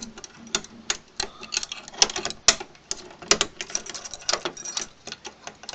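Try-out key being jiggled and turned in a three-lever lock, its metal rattling and clicking against the levers in irregular clicks, several a second.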